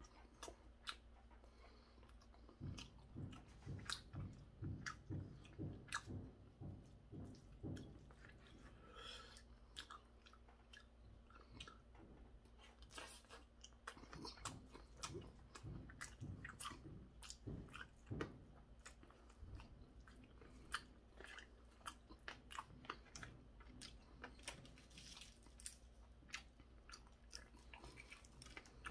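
A person chewing mouthfuls of stir-fried pork cartilage, crunching it. There are two runs of steady chewing at about two strokes a second, with small sharp clicks between them.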